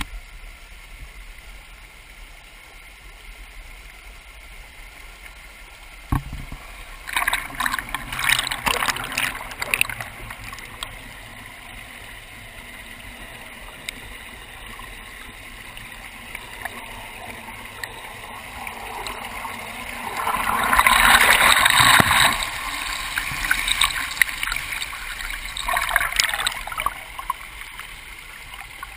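Stream water rushing and gurgling over rocks, heard right at the water's surface. It swells louder with splashing a few seconds in and again about two-thirds through, and there is a single knock shortly before the first swell.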